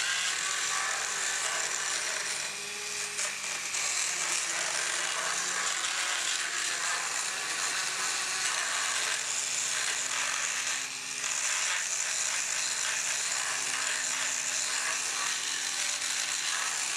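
Dremel-driven motorized equine dental float running steadily and grinding down a sharp edge on the cheek side of a horse's molars, a high grinding noise over a low motor hum. The grinding dips briefly twice, about two and a half and eleven seconds in.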